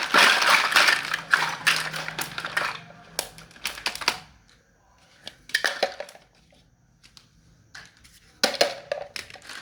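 Small plastic toy pieces and packaging being handled: a dense spell of rustling and clattering at first, then scattered sharp clicks and clatters with quiet gaps between.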